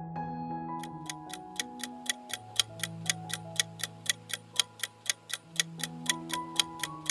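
Countdown-timer clock-ticking sound effect, even ticks at about three a second starting about a second in, over soft background music of held notes.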